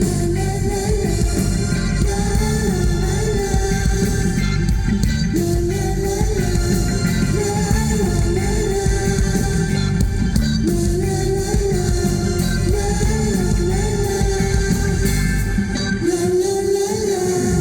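A band playing live, with a wavering sung melody over a dense, loud accompaniment of bass and drums.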